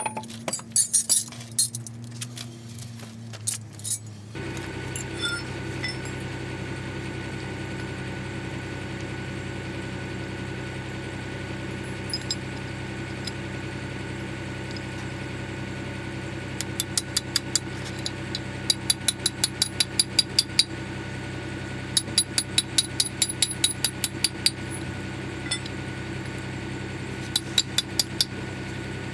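Quick runs of metal hammer blows, about six a second in four bursts from about halfway through, while the drive shaft's universal joint is worked on. Underneath is a steady engine-like drone that starts about four seconds in.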